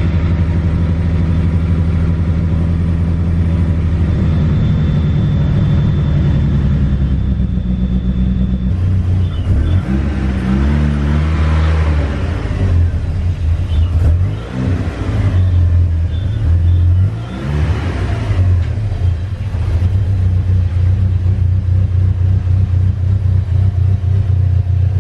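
Turbocharged 4G63 four-cylinder of a 1G DSM Talon running steadily at idle, then rising and falling in pitch about three times as it is revved and the new clutch is let out to move the car, before settling back to a steady run.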